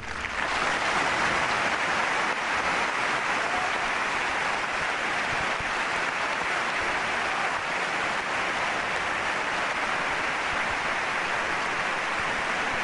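A large arena crowd applauding steadily. The applause breaks out suddenly at the start and holds at an even level throughout.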